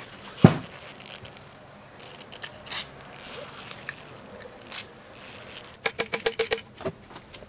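A knock, then two short hisses from an aerosol can sprayed into a motorcycle fork tube, then near the end a rapid run of ringing metallic clacks, about nine a second: the Honda SH300i fork's inner and outer tubes being slammed against each other to drive out the stuck oil seal.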